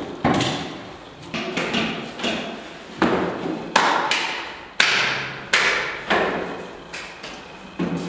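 An irregular series of sharp knocks and thuds, roughly one a second, each ringing out in a reverberant room.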